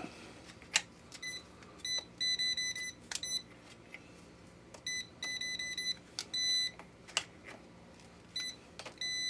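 Non-contact voltage detector beeping in short bursts and rapid runs of high chirps, signalling that the cable it is held against is live. A few sharp clicks fall in between.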